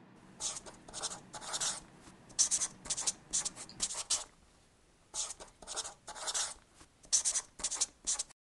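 Marker pen writing in quick scratchy strokes as lettering is handwritten, with a pause of about a second midway. It stops abruptly shortly before the end.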